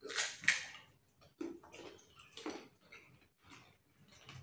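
Golgappas (pani puri) being eaten: a run of short crunches and slurps, the loudest two coming close together right at the start, then quieter ones at uneven intervals.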